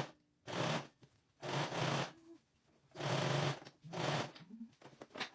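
Electric sewing machine stitching a fabric strip in short runs, starting and stopping four times, with a few small clicks near the end.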